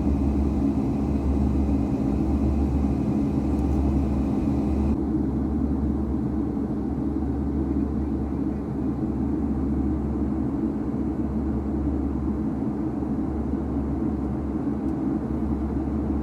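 Boeing 757-300 jet airliner in flight: a steady low engine rumble with a constant hum. A higher hiss layered over it cuts off suddenly about five seconds in.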